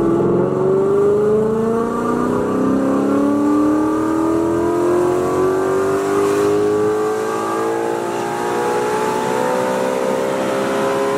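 Ford Coyote 5.0 V8 with long-tube headers, a GT350 intake manifold and a Corsa Extreme cat-back exhaust, making a wide-open-throttle pull in third gear. The engine note climbs steadily through the revs toward an 8,000 RPM redline, heard from inside the cabin.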